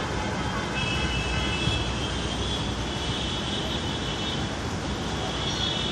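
Steady outdoor background rumble, with a high thin whine that comes in about a second in, fades, and returns near the end.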